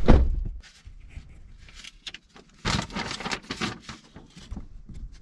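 A single sharp thump, then quiet, then about a second and a half of rustling and handling noises starting some two and a half seconds in.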